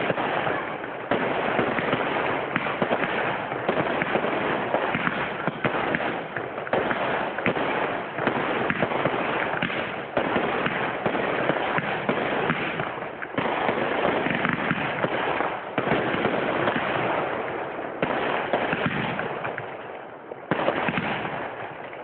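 Fireworks display going off in a rapid, nearly unbroken string of launches, bangs and crackling bursts, with brief lulls every second or two.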